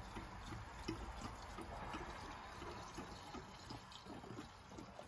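Mixed 50:1 two-stroke fuel pouring from a jerry can through a flexible spout into a chainsaw's fuel tank: a faint, steady liquid fill.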